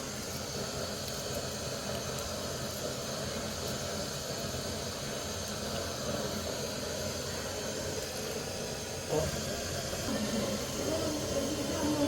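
Steady hissing from the stove and pot as the milk tea heats, with a single click about nine seconds in.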